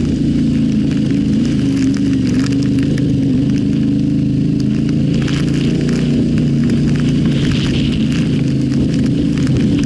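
Yamaha Ténéré 700's parallel-twin engine running at a fairly steady pace while riding off-road, with a constant crackle of stones and gravel under the tyres.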